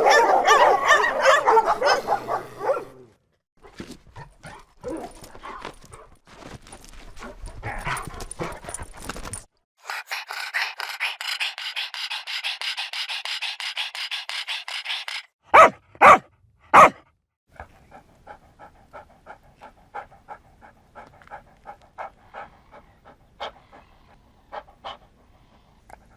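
A run of separate dog sound-effect clips. Barking and yipping comes first, then a spell of rapid panting. Three loud single barks follow in quick succession, then fainter quick panting.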